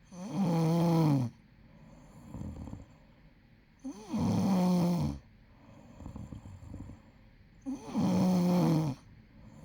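A person snoring: three long, pitched snores about four seconds apart, each lasting about a second and dropping in pitch at its end, with softer breaths between them.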